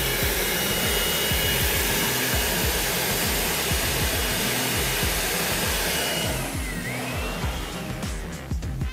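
Upright vacuum cleaner running with a steady whooshing motor noise and a faint high whistle, dying away about six and a half seconds in.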